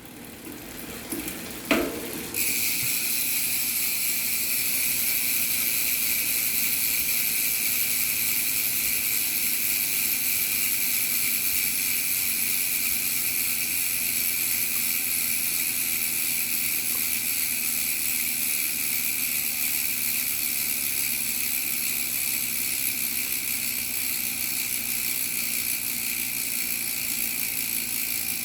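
Origin 8 Boost rear hub's freehub ratcheting, its pawls clicking too fast to hear apart, so it runs as a steady high buzz. A single thump about two seconds in, just before the buzz starts.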